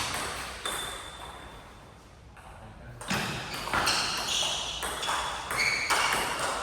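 Table tennis ball clicking off rackets and the table in a rally, a quick run of sharp pinging hits after a short pause about three seconds in.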